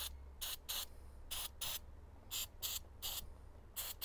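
Aerosol throttle body and carburettor cleaner squirted onto a carburettor's brass main jet to clean it: about eight short hissing squirts, mostly in quick pairs.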